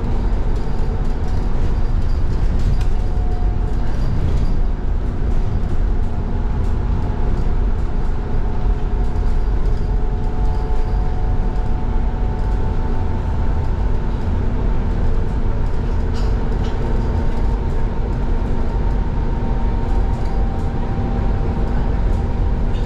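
Irizar ie tram battery-electric bus riding at speed, heard from inside the cabin: a steady low road rumble with a constant electric drive hum, and occasional light rattles.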